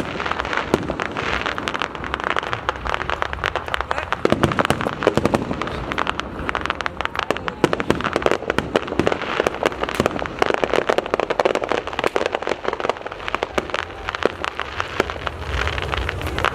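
Aerial fireworks going off in a dense, unbroken barrage of many rapid crackling pops and bangs.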